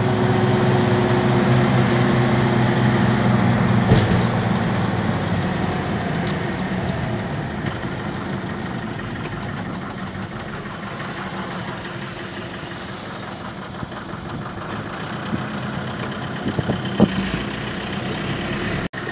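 A road vehicle's engine and tyre noise, heard from inside the moving vehicle. The engine hum is strongest in the first few seconds and slowly eases off. There is a sharp knock about four seconds in and a few light clicks near the end.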